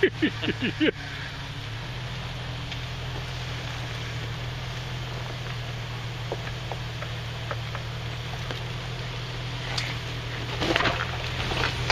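A 1997 Jeep Wrangler TJ's engine runs with a steady low hum as the Jeep crawls slowly down a rocky trail, with a few faint clicks from the tyres on rock. A quick run of short pitched sounds is heard during the first second.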